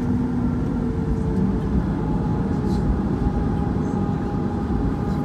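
Steady low cabin rumble of a Boeing 737 MAX 8 taxiing, from its CFM LEAP-1B engines and rolling gear, with faint steady tones on top.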